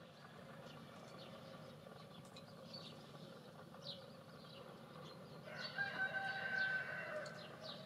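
Faint scattered chirps of small birds, then a rooster crowing from about five and a half seconds in, held for about two seconds.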